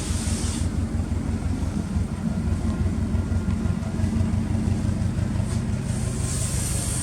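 Subaru Impreza GDB's turbocharged flat-four running steadily at idle through an aftermarket Fujitsubo exhaust, an even low pulsing with no revving. A high hiss comes in near the end.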